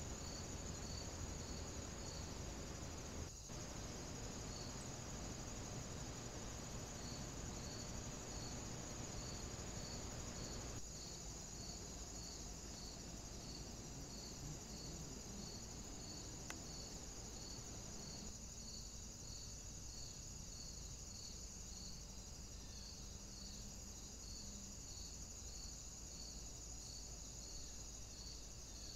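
Insects chirping: a steady high-pitched trill with regular short chirps, a little over one a second, over a faint hiss whose level shifts abruptly a few times.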